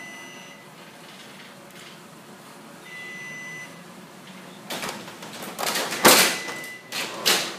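LiftMaster 3850 garage door opener running on battery backup: a steady low hum, with a short high beep near the start and another about three seconds later. From about five seconds in comes a run of loud clattering noises, the loudest about six seconds in.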